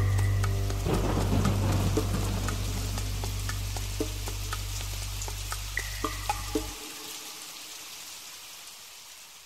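The end of a song fading out: a held low chord that stops about seven seconds in, over an even rain-like hiss with scattered light tinkling notes, all growing fainter.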